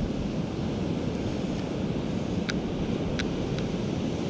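Surf breaking on the beach and wind buffeting the microphone, with three short high ticks in the second half.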